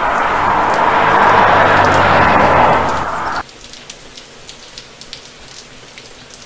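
Heavy rain with a car driving through it, a steady low engine and tyre hum under the downpour. About three and a half seconds in it cuts off suddenly to faint rain patter with scattered drip ticks.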